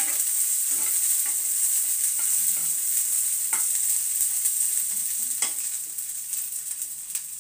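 Chopped cluster beans sizzling in a little oil in a non-stick frying pan as they roast, stirred with a plastic spoon that knocks and scrapes against the pan a few times. The sizzle grows quieter near the end.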